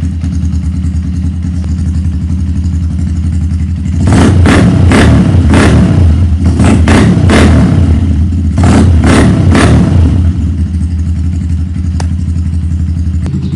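Rusi KR150 motorcycle engine running again after stale petrol was drained from it. It idles, then the throttle is blipped in a series of about ten quick revs in three groups through the middle, then it settles back to idle.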